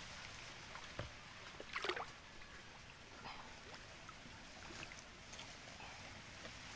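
Faint lapping and splashing of water around a man wading chest-deep, with one short splash about two seconds in and a few small knocks later.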